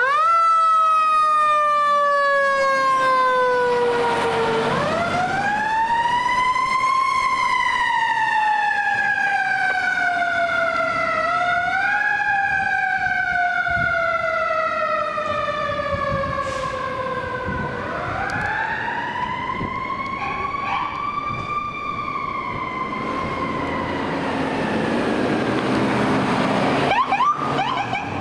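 Fire truck siren wailing in long sweeps, each rising quickly and then falling slowly in pitch, about four times. Near the end a faster, yelping siren starts up.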